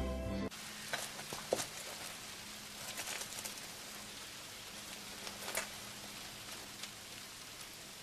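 Background music ends about half a second in, leaving a faint steady hiss of ambience with a few scattered soft clicks and ticks.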